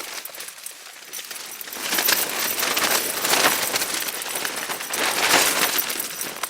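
Strong wind gusting against a Tarptent StratoSpire 1 tent, the tent fabric flapping and rattling. It is quieter for the first two seconds, then the gusts build and swell.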